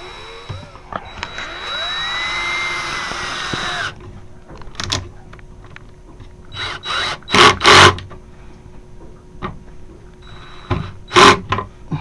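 Cordless drill driving a screw into a drawer slide rail for about three and a half seconds, its motor pitch rising and then falling. This is followed by a series of sharp knocks and clacks, loudest about two-thirds of the way through.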